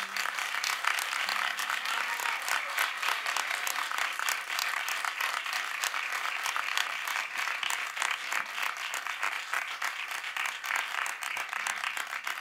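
Small studio audience applauding at the end of a live song, a steady patter of many hands clapping.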